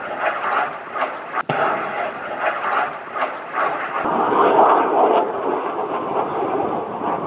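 Distant rushing roar of an attack helicopter and its missile in flight, steady and noisy, with one sharp crack about a second and a half in and a swell around four to five seconds as the aerial target is struck.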